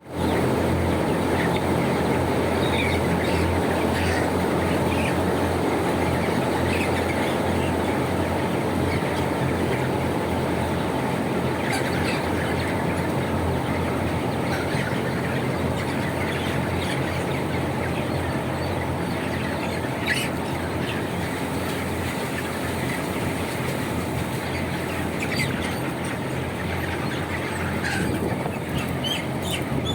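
Din of a large flock of 28-day-old broiler chickens in a closed poultry house: many short chirps and peeps over a steady mechanical hum.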